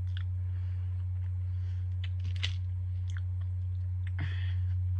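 Faint chewing and mouth clicks of someone eating a sweet snack, with a few short soft crunches, over a steady low hum.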